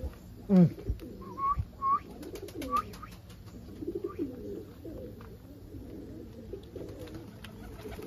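Several homing pigeons cooing together in a loft, low overlapping calls. There is one loud falling call just after the start and a few short higher-pitched calls in the first three seconds.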